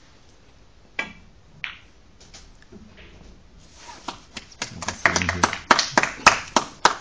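A snooker cue strikes the cue ball with a sharp click about a second in, followed shortly after by a second click as the cue ball strikes another ball. In the last three seconds comes a quick, irregular run of loud, sharp slaps and knocks, the loudest part.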